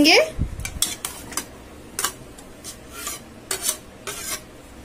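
Slotted spoon scraping chopped cucumber out of a small steel bowl: a string of short scrapes and taps against the metal, with a soft thud of the pieces landing in the serving bowl about half a second in.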